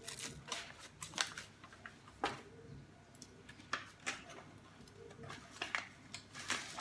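Scattered light clicks and crinkles of a disposable aluminium foil tray being handled and set down on a table, about eight irregular taps, the sharpest about two seconds in.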